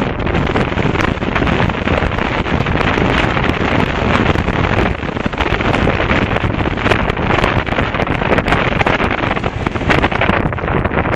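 Wind rushing over a microphone on a moving motorcycle: a loud, steady roar with crackling gusts throughout, and a brief dip about five seconds in.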